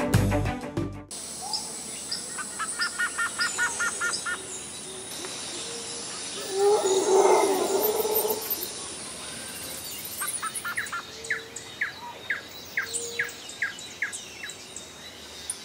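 Birds singing and calling outdoors: a quick run of short repeated chirps, then a rough, noisier call in the middle, then a series of short falling chirps at about three a second. Background music stops about a second in.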